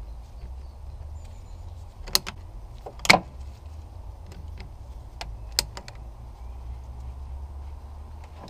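Scattered sharp clicks and knocks of hand tools and plastic coolant hose fittings being worked loose in a car engine bay, the loudest about three seconds in, over a low steady rumble.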